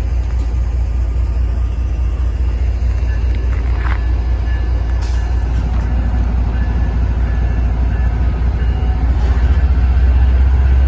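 MBTA commuter rail train of bilevel coaches rolling past a station platform: a steady low rumble that grows louder near the end.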